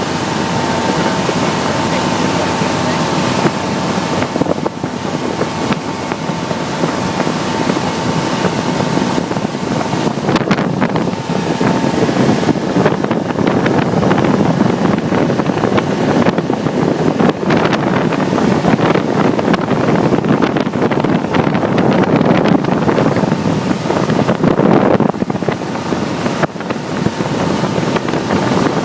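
Speedboat running at speed, its engine and the rushing water making a loud, steady noise, with wind buffeting the microphone.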